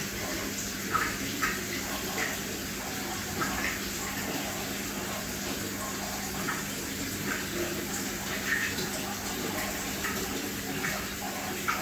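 Aquarium water trickling and bubbling steadily, with small irregular splashes and a low steady hum underneath.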